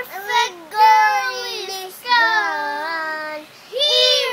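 A young boy singing with a high, childish voice and no clear words. He holds long notes that bend up and down, in about three phrases with short breaths between.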